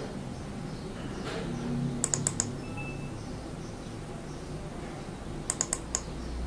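Sharp clicks of buttons being pressed, in two quick runs of four: one about two seconds in and one near the end, over a low steady hum.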